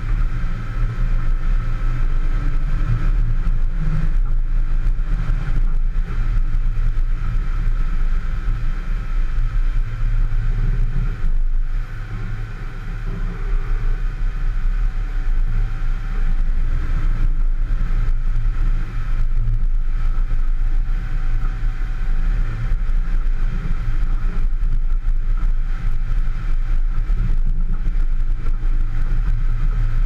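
Four-wheel-drive vehicle driving along a dirt track, heard from a camera on its bullbar: a steady, loud low rumble of engine and travel with a faint steady whine above it, easing briefly about twelve seconds in.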